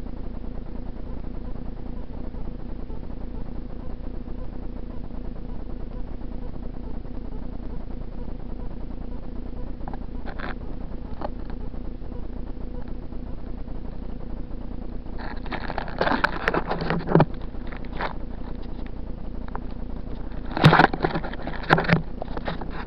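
Steady low hum, with the camera itself being jostled and knocked over: loud clattering and scraping handling noise about sixteen seconds in and again near the end, the later bursts from the housing rubbing in grass.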